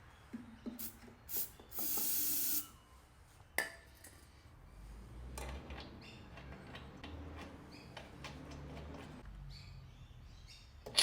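Aerosol can of starting fluid sprayed in one short hissing burst of about half a second into the spark plug hole, with a few small clicks and handling knocks around it.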